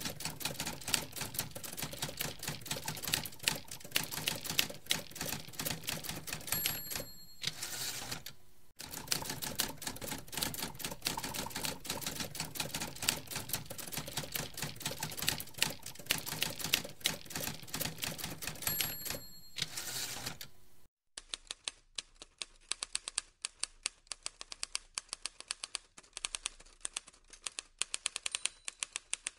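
Manual typewriter typing: rapid key clacks, with the carriage bell ringing and the carriage being returned twice, about seven and nineteen seconds in. From about twenty-one seconds the typing goes on quieter, thinner and sparser.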